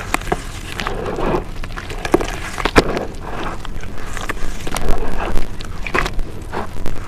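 Close-miked crunching and crackling of brown dirt being chewed in a full mouth: irregular gritty crackles with a few sharper snaps, the louder ones about three and five seconds in.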